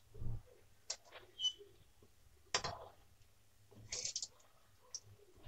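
Faint, scattered knocks and clicks, with a quick cluster of light metallic clicks about four seconds in as a steel ladle goes into the iron kadhai to turn the frying balls.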